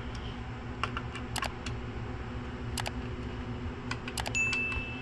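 Scattered sharp clicks, then a short high chime from about four seconds in, over a steady low hum: the click and bell-ding sound effects of a subscribe-button animation.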